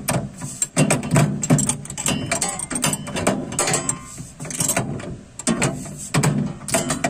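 Repeated metallic clicking and rattling as a tubular cam lock and its mounting hardware are fitted into a steel tool chest and snugged up.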